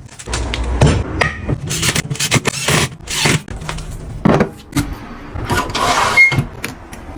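Wood lathe spinning a zelkova burl blank while a turning tool cuts into it: a steady low motor hum under repeated irregular scraping bursts and sharp knocks.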